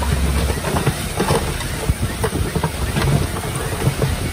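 Komatsu D20P bulldozer at work: the diesel engine running with the irregular clatter and knocks of steel tracks and stones being pushed. A heavy low rumble drops away about half a second in.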